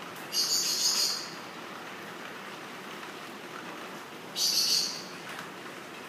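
Female eclectus parrot giving two short, harsh, hissing screeches about four seconds apart, over a steady hiss of falling water.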